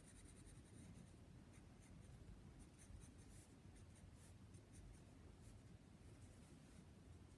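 Faint scratching of a graphite pencil on paper as shading strokes are drawn: rapid back-and-forth hatching in the first second, then separate short strokes.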